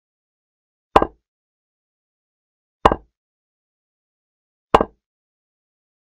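Chess move sound effect from an online chessboard: a short, sharp click as each piece is set down, three times about two seconds apart.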